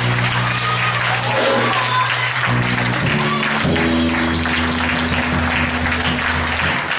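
Congregation applauding over gospel music, the band holding low chords that change twice, with a few shouts or whoops above the clapping.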